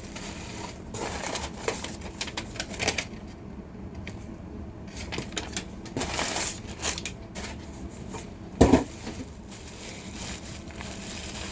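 A package being worked open by hand: scattered crinkling, scraping and tearing of the packaging, with one sharp thump about eight and a half seconds in.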